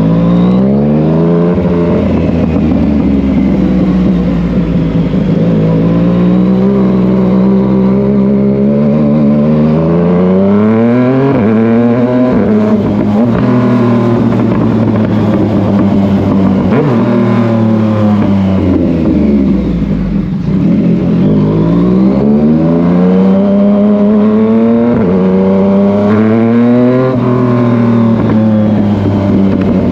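Yamaha MT-09's three-cylinder engine being ridden hard: it revs up through the gears, the pitch climbing and then dropping at each shift, with slower falls in pitch as it comes off the throttle and slows, several times over.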